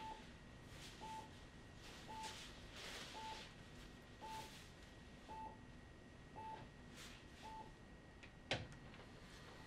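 Bedside patient monitor beeping softly, one short mid-pitched beep about once a second, over a faint steady high whine. The beeps stop near the end, followed by a single sharp click.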